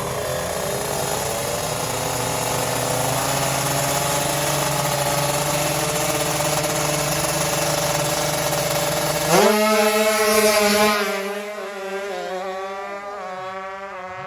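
Two tuned 155 cc two-stroke sport motorcycles are held at high revs at the drag strip's start line. About nine seconds in they launch, and the note climbs in steps through quick gear shifts. It is loudest for a second or two, then fades as the bikes run away down the strip.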